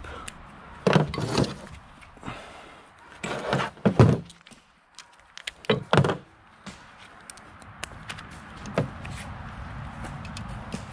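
A series of dull thunks and knocks, about half a dozen at irregular intervals, from hand tools and metal parts being handled on a worktable next to a removed cylinder head.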